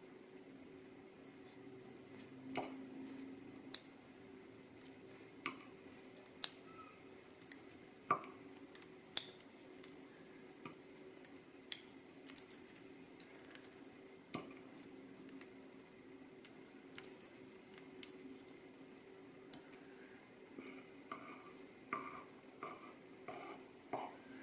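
Tiny pin-tumbler lock parts (pins, springs and a pin cap from the lock's bible) clicking and clinking against a hard surface and each other as they are taken out and set down, in scattered single clicks every second or so, over a faint steady hum.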